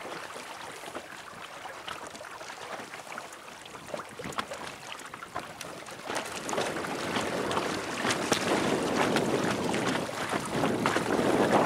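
Wind buffeting the microphone and choppy water splashing against an inflatable dinghy under way into the wind. It grows louder through the second half.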